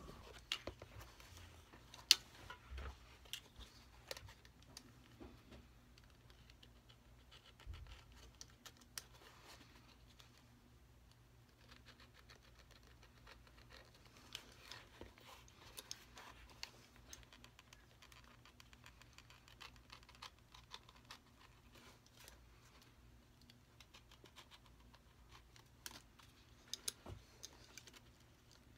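Faint, scattered small clicks and scratches of hands working on a leather shoe, the sharpest click about two seconds in, over a low steady hum.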